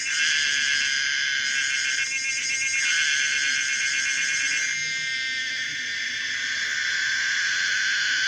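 Home-made recreation of the call of the cicada Pomponia linearis: a loud, high buzzing that alternates between a rapid pulsing texture and a smoother, steadier drone, switching every second or two.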